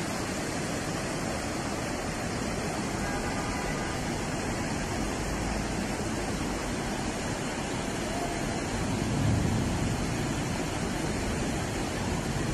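Flash floodwater rushing, a steady, even wash of noise.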